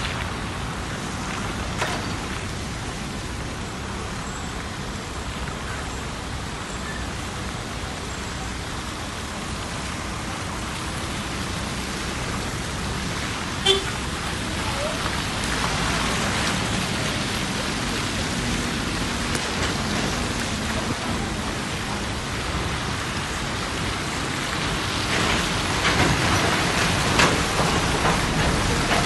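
Steady road noise from inside a moving vehicle driving on a wet, muddy road: a low engine rumble under the noise of tyres on the wet surface. A brief beep about 14 seconds in, and the noise grows louder near the end.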